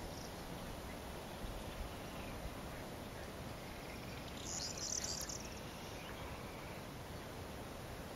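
Corn bunting singing: one short, high song lasting about a second, about halfway through, over a steady background hiss.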